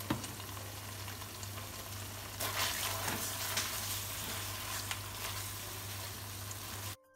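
Sauces and sliced onion sizzling in a hot granite-coated wok, with a spatula stirring and scraping through them from about two and a half seconds in, which makes the sizzle louder and busier. A low steady hum sits underneath, and the sound cuts off suddenly near the end.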